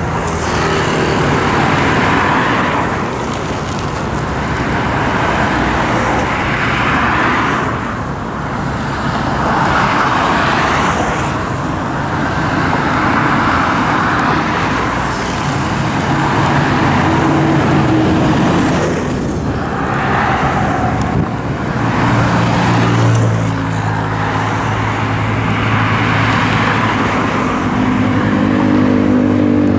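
Road traffic on a busy highway: cars, pickups and motorcycles passing one after another, their tyre and engine noise swelling and fading every few seconds. From about two-thirds of the way in, a deeper engine hum joins.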